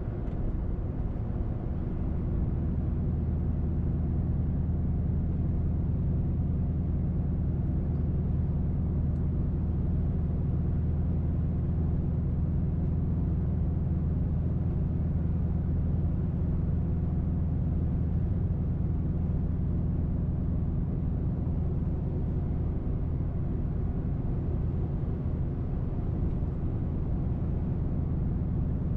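Inside the cabin of a 2005 Mercury Grand Marquis cruising at a steady speed, its 4.6-litre V8 breathing through an H-pipe with the mufflers deleted. The result is a steady low drone with road noise, the exhaust very mild at light throttle.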